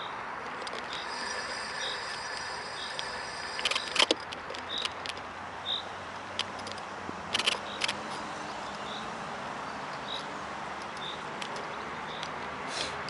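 Phone holder on a Kugoo V1 Plus squeaking in short high chirps, roughly once a second, over steady riding noise, with a few sharp clicks or rattles from bumps around the middle.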